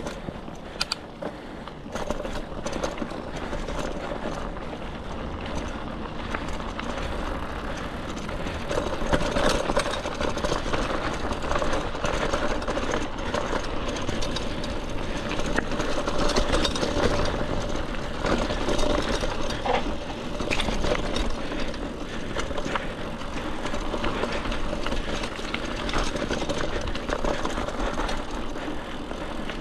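Mountain bike rolling along a dirt trail: a steady rush of tyre and wind noise, with scattered clicks and rattles from the bike over rough ground.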